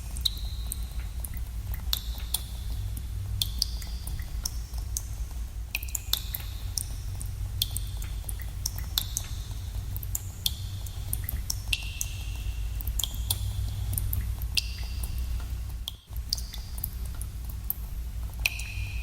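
Water drops falling into pooled water in a cave: an irregular patter of plinks, one or two a second, each a sharp click with a short ringing tone and an echo. A steady low rumble runs under them, and the sound cuts out for a split second about sixteen seconds in.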